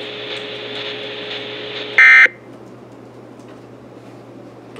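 Weather radio hiss, then about two seconds in a single short, loud, buzzy burst of Emergency Alert System digital data, the end-of-message code that closes the alert.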